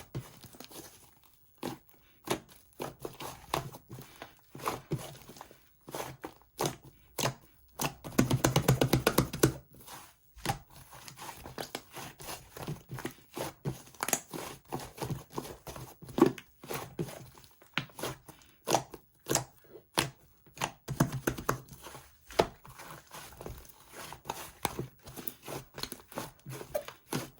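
Slime being squeezed, poked and stretched by hand, giving irregular sticky clicks, pops and crackles. About eight seconds in comes a dense run of rapid crackling for over a second.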